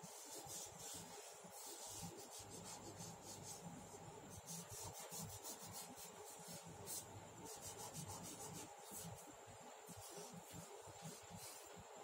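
Charcoal rubbed over drawing paper by hand to shade and blend a drawing, faint. It comes in runs of quick back-and-forth strokes, several a second, with short pauses between the runs.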